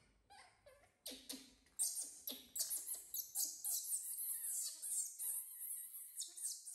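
Baby macaque screaming: a run of shrill, high-pitched squeals starting about a second in, a distress cry while it is being held and lifted.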